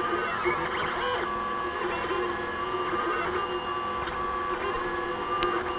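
3D printer at work: its stepper motors whine in steady tones that jump to a new pitch with each move of the print head, with short rising and falling glides between.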